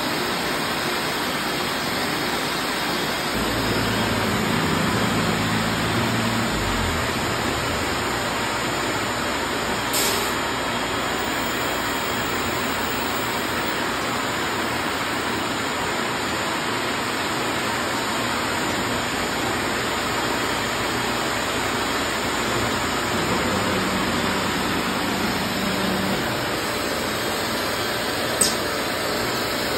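Vacuum hold-down system of a MultiCam 3000 CNC router running with a steady rushing noise while it holds a sheet to the table. A low hum comes and goes twice, sharp clicks sound near the middle and near the end, and a rising whine starts at the very end.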